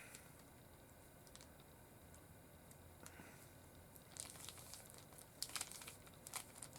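Near silence, then from about four seconds in a run of quick light clicks and crinkly rustles: a plastic Rubik's Cube being handled and twisted.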